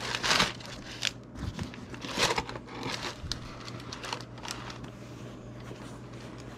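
Irregular rustling and crinkling handling noises as a new leather hiking boot is turned over in the hands above its box and packing paper, loudest just after the start and about two seconds in, over a steady low hum.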